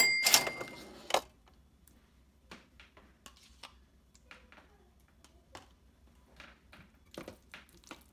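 A metal spoon knocks against a slow cooker's crock with a short ringing clink, followed by two more knocks within about the first second. Soft, scattered scrapes and dabs follow as sour cream is spooned in and stirred with a silicone spatula.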